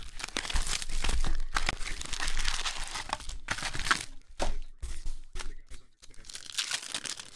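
A cardboard trading-card box torn open, then foil-wrapped Panini Prizm card packs crinkling as they are pulled out and handled. A dense run of tearing and rustling for the first few seconds gives way to separate crinkles.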